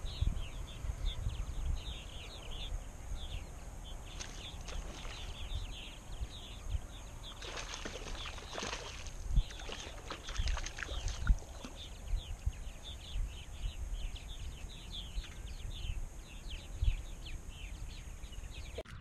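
Birds chirping continuously in many short, quick calls, over a low rumble of wind buffeting the microphone.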